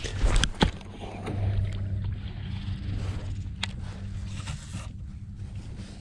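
Baitcasting rod and reel cast: two sharp knocks at the start, then the reel's spool whirring as line pays out, slowing and dropping in pitch. A steady low hum runs under it throughout.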